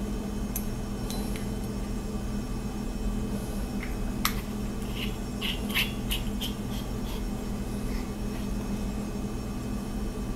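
A few faint clicks and taps near the middle as the parts of a machined metal flashlight are handled and screwed back together, over a steady low electrical hum.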